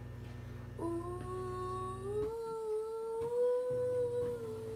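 A young girl's voice holding one long wordless sung note: it starts about a second in, slides up in pitch and is then held steady for several seconds. A low steady hum underneath drops out about two seconds in and comes back near the end.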